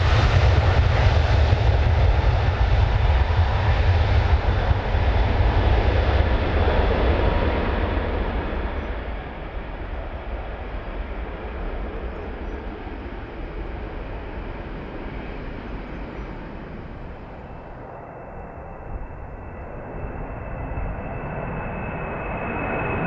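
Airbus A300-600R's twin jet engines at takeoff thrust as the airliner departs, loud and deep at first, then fading steadily from about eight seconds in as it climbs away. Near the end a steady high-pitched whine comes up and the overall level rises again.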